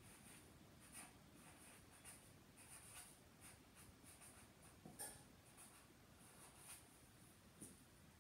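Faint, stop-start strokes of a felt-tip marker writing on paper.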